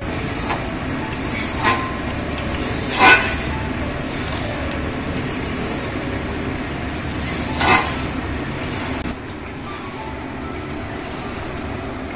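Metal spatula stirring and scraping thick spinach paste in a steel kadai as it is fried down, with a few sharp clinks of the spatula against the pan, the loudest about three seconds in, over a steady rushing noise.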